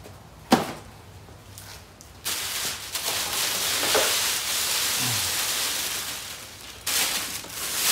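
A cardboard box is set down on a wooden bench with a single knock about half a second in. Then a thin plastic bag crinkles and rustles loudly as a large wall clock is pulled out of it, with a last burst of crinkling near the end.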